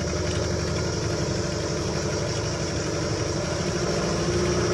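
Small boat's outboard motor running steadily, with an even, unchanging engine note.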